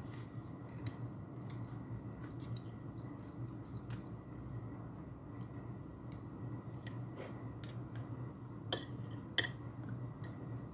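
Metal fork and spoon clinking and scraping against a ceramic plate while rice and vegetables are scooped up, as scattered sharp clicks over a steady low hum.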